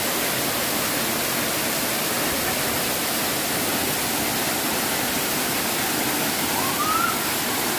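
Waterfall pouring onto rock, a steady rushing of water. A faint, brief rising tone about seven seconds in.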